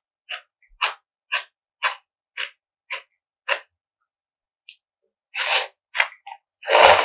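Close-miked eating sounds: crisp chewing, about two chews a second, then after a pause a couple of louder, longer wet bites or slurps near the end.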